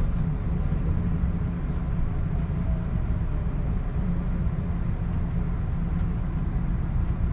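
Steady low rumble of a moving train, with no distinct knocks or clicks.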